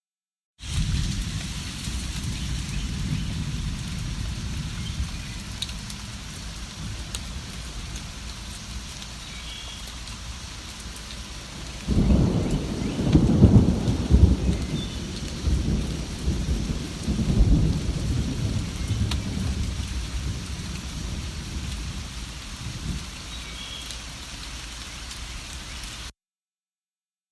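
Steady rain falling, with a long low rumble of thunder starting about halfway through and fading over several seconds. A few faint, short bird chirps sound over the rain. The sound cuts in after a brief silence at the start and drops out to silence near the end.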